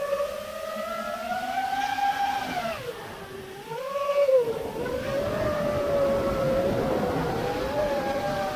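Motors and propellers of a 5-inch FPV quadcopter whining, heard through its onboard action camera; the pitch rises and falls with the throttle, dipping and quieting about three seconds in before picking back up.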